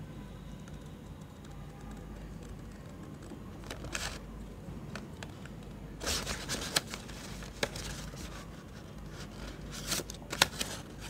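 Scissors cutting through a plastic courier mailer bag and its paper shipping label, the plastic crinkling as it is handled. The crinkling grows louder about halfway through, with several sharp snips, the loudest near the end.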